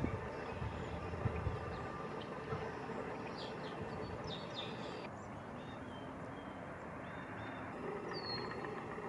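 Birds calling over a steady outdoor background hiss: a quick run of high chirps a few seconds in, faint thin calls after them, and one falling whistle near the end.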